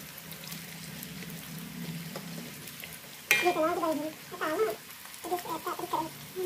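Peyek crackers sizzling and crackling as they deep-fry in hot oil in an aluminium wok, stirred with a metal spatula. About halfway through, a sharp click is followed by a high-pitched voice in short stretches, which becomes the loudest sound.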